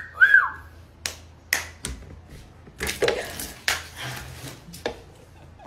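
Several sharp taps and clicks at irregular intervals in a small room, with a short squeak that rises and falls just after the start.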